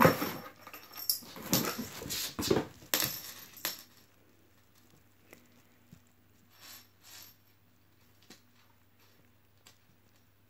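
Maine Coon cat scrambling and pouncing on a hardwood floor, paws and claws skittering and clattering in a quick flurry for about four seconds. After that, only a few faint taps and rustles.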